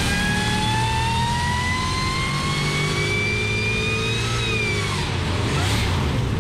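Harrop-supercharged 454 Chevy big-block V8 making a pull on an engine dyno. It climbs steadily in revs under load with a high whine rising alongside, then backs off about four seconds in.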